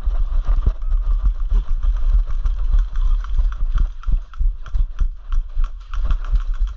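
Footsteps and rustling gear of a player moving on foot, with a quick run of steps near the middle, over a steady low rumble of handling noise on the microphone.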